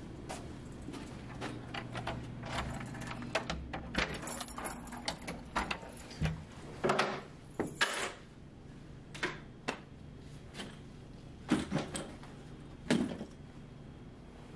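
Keys jangling and an apartment door being unlocked and opened: a dense run of small clicks and rattles through the first half, then a few scattered knocks.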